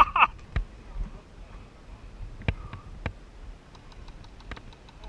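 Airsoft guns firing scattered single shots: sharp cracks about a second or two apart, with fainter distant ticks in between.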